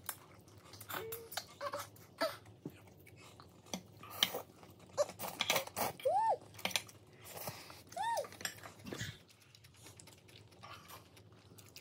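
Chopsticks and forks clicking and scraping against bowls and plates during a noodle meal, a scatter of light irregular taps. Two brief rising-and-falling tones come about two seconds apart in the middle.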